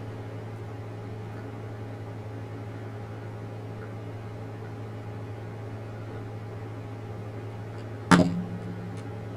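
Steady low electrical hum, with a single sharp knock about eight seconds in that rings briefly.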